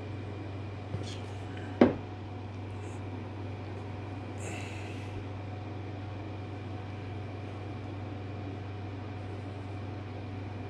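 Steady low hum of shop equipment, with a single sharp knock about two seconds in and a brief soft hiss a couple of seconds later, while wood glue is squeezed onto and spread across an oak board by hand.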